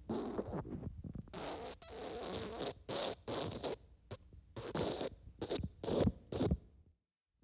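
Wet fart sound effect: an irregular run of short sputtering bursts of varying length. It stops suddenly about six and a half seconds in.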